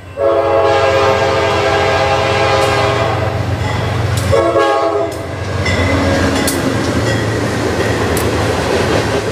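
Union Pacific diesel locomotive sounding its multi-chime air horn: a long blast of about four seconds, then a short one. The engine rumbles and the train runs by underneath.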